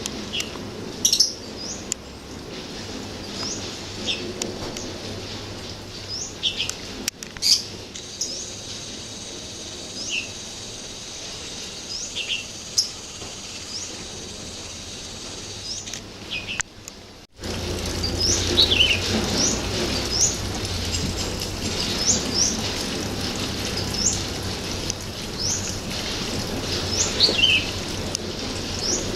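Wild birds chirping: short, high chirps, many sweeping up in pitch, repeated every second or so. About two-thirds of the way through there is a sudden break, after which a steady low rumble runs under the chirping.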